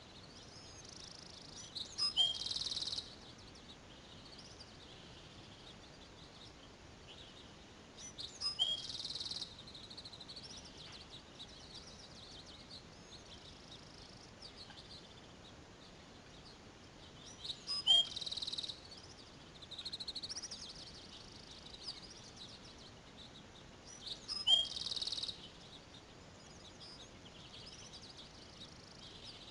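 Small birds singing outdoors over a steady hiss, with continual high chirps. A short, high, buzzy phrase that opens with a sharp click comes four times, about 2, 9, 18 and 25 seconds in.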